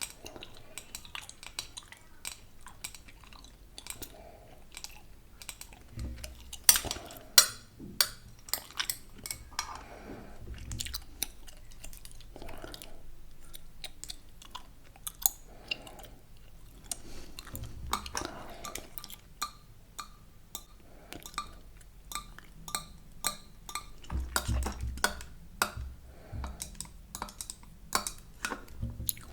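Gum chewed close to the microphone: irregular smacks and sharp clicks of the mouth, several a second, with a few louder clicks about seven seconds in.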